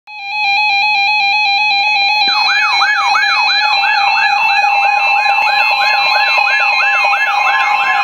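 Several NOAA weather radios sounding their alert alarms at once, alerting to a special marine warning: overlapping steady and beeping tones start suddenly, joined about two seconds in by a fast repeating rising warble, about three sweeps a second.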